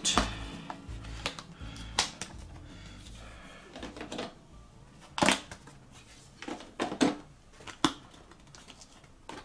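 Die-cut cardboard pieces being punched out of a board-game punchboard: irregular sharp snaps and pops, a few of them loud, with quieter crinkling of card in between.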